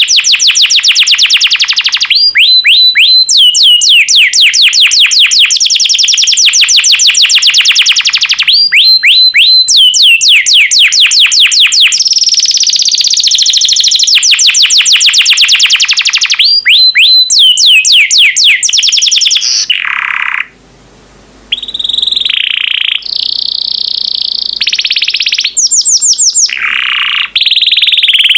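Yellow domestic canary singing loudly and continuously: long rolling trills of fast repeated notes, each phrase switching to a new note type every few seconds, with one short pause about two-thirds of the way through.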